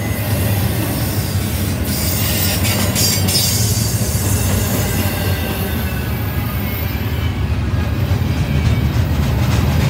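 Double-stack container well cars of an intermodal freight train rolling past close by: a steady low rumble of steel wheels on rail, with a stretch of high wheel squeal about two to three seconds in.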